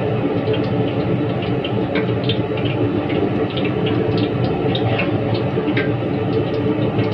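Gas wok burner running with a steady roar under a wok of heating cooking oil, the oil crackling and popping in short, irregular ticks.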